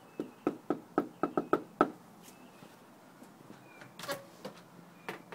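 Knuckles knocking on a front door: about eight quick raps in under two seconds, the later ones coming faster.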